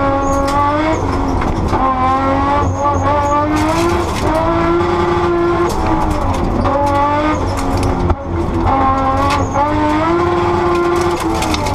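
Nissan R32 Skyline's engine heard from inside its stripped-out cabin, revving up through the gears and dropping back again several times as it is driven hard, with the pitch climbing, breaking at each shift and settling.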